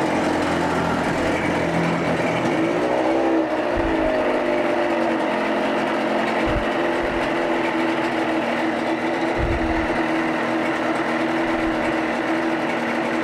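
1988 Evinrude 30 hp two-cylinder two-stroke tiller outboard running in a water test tank just after starting, held at a steady idle. About three seconds in, the engine speed briefly rises and falls back.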